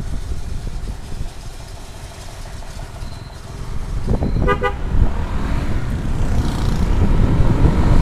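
Motorcycle riding, with engine and wind noise on the helmet microphone. About four and a half seconds in a vehicle horn gives a rapid string of short beeps, and the engine and wind noise grow louder through the second half as the bike speeds up.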